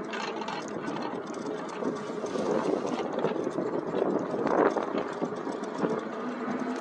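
Steady running noise of an electric bike being ridden along a road: a continuous mechanical whir with no break, swelling slightly a little past the middle.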